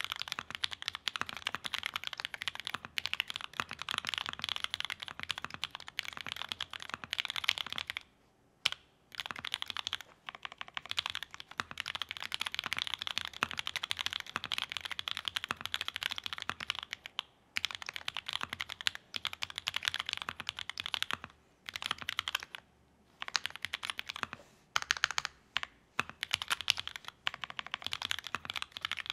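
Typing on a mechanical keyboard fitted with JWK ALS linear switches lubed with Krytox 205g0, under EnjoyPBT Dolch Orange keycaps on a GEON F1-88 aluminium board with an FR-4 plate and foam. Fast, continuous keystrokes broken by a few brief pauses.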